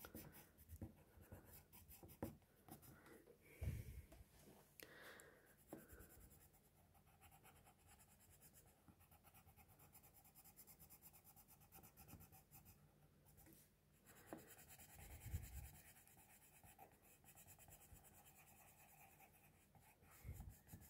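Faint scratching of a red coloured pencil shading on paper in rapid short strokes, with a few soft thumps.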